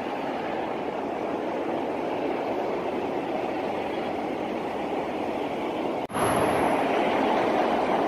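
Steady rushing of road traffic on the expressway below. The noise breaks off for an instant about six seconds in, then carries on slightly louder.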